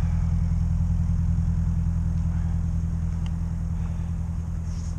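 An engine idling: a steady low hum of several fixed tones, easing off slightly in loudness.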